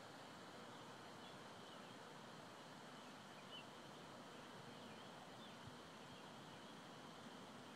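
Near silence: a faint, steady outdoor hiss, with a few faint high bird chirps scattered through it.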